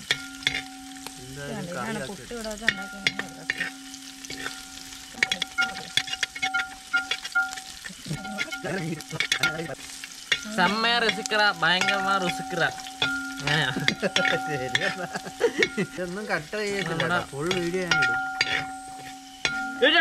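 A spoon stirring in a pan and knocking against its sides many times, irregularly, while food sizzles in hot oil: the base of a fish curry being fried.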